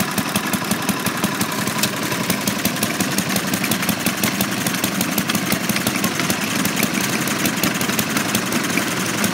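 Small vintage stationary internal-combustion engines running steadily, their firing making a fast, even ticking over a low running note.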